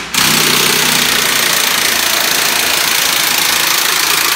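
Cordless drill running steadily at speed, spinning the screw of an upside-down scissor jack that spreads against a foam run-flat insert to force it down into an ATV tire.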